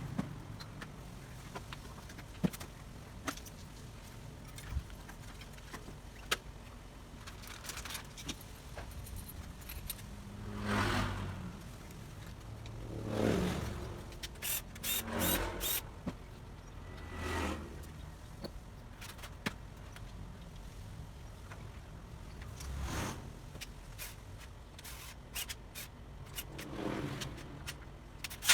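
Packaging and bicycle parts being handled during unboxing: several short bursts of rustling and scraping, with scattered clicks and knocks in between.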